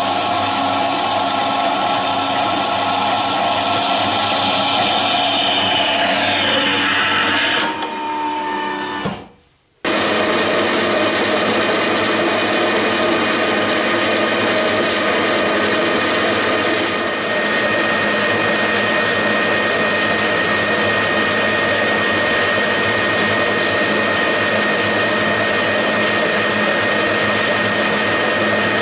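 A Contimac metal-cutting band saw runs, sawing through a small metal rod; about seven seconds in its tone drops and fades. After a short break, a metal lathe runs steadily while a drill in a tailstock chuck bores into the end of the spinning rod, with a steady high whine joining in partway through.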